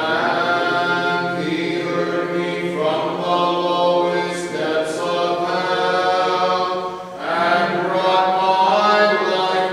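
Orthodox Lenten liturgical chant: several voices singing together in phrases a few seconds long, with a short break for breath about seven seconds in.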